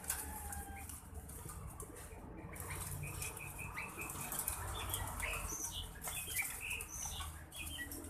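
White-breasted waterhens flapping and scrambling as they are grabbed by hand, with short high bird chirps and squeaks scattered over it from a few seconds in.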